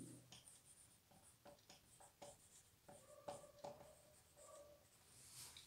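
Marker pen writing on a whiteboard: faint quick strokes, with a few short squeaks about three seconds in.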